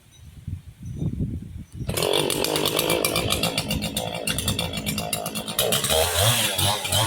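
Chainsaw cutting through a palm trunk: quieter at first, then about two seconds in it revs up sharply and runs loud through the wood, pulsing near the end. The chain has its rakers (depth gauges) filed well down, so it bites in aggressively.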